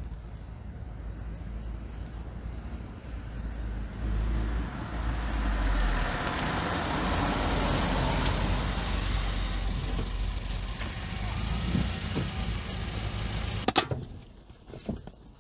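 A small hatchback drives up and pulls to a stop: engine and tyre noise swells from about four seconds in, then dies away. Near the end, a sharp thud of a car door shutting.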